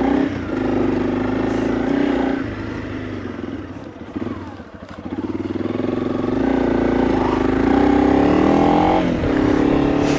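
Honda CRF300 Rally's single-cylinder engine running on the move. Its pitch and level fall about two and a half seconds in as the throttle eases off, then climb again from about five seconds on.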